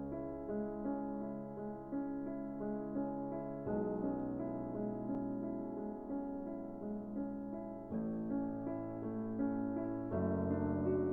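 Background music: soft electric piano playing sustained chords that change every few seconds.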